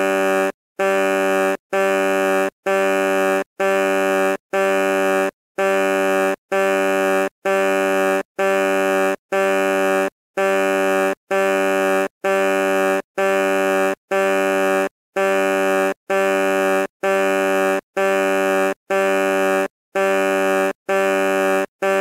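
Truck horn beeping in a long, even run of short blasts, a little more than one a second, each held at the same low pitch.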